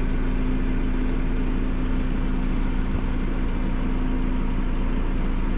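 Vehicle engine idling steadily, a constant low hum.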